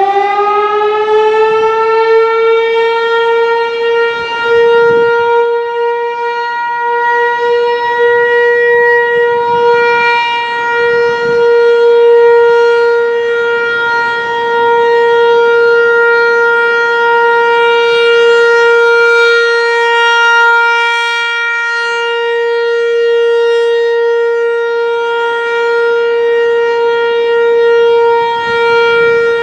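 Federal Signal Equinox outdoor warning siren sounding a test: having wound up to pitch, it holds one steady tone, its loudness swelling and dipping slightly.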